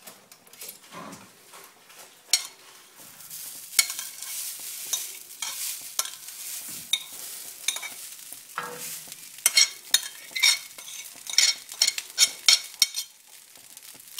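Leftover rice tipped onto a hot, oiled tawa griddle and spread with a spoon: sizzling, with the spoon scraping and tapping on the griddle, in a quick run of sharp clicks in the second half.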